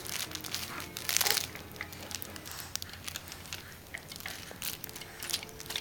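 Crinkling and rustling of a toy being handled, with scattered small clicks and one louder rustle about a second in.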